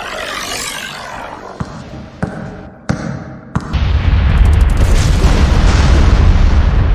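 AI-generated sound effects: a few sharp single knocks a second or less apart, then, about halfway through, a loud, deep, sustained rumbling boom.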